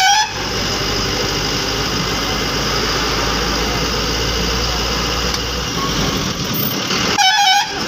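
Ashok Leyland bus's diesel engine running steadily, heard from inside the cab. A horn with a wavering pitch cuts off just after the start and sounds again briefly near the end.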